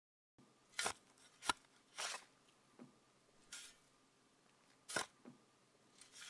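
Five or so short rustling, scuffing noises, a second or more apart, over a faint steady hum: a gagged person stirring.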